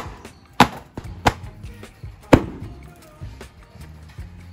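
A wooden stick beating a carpet car floor mat to knock the dust out: about half a dozen sharp whacks at uneven intervals, the hardest in the first half.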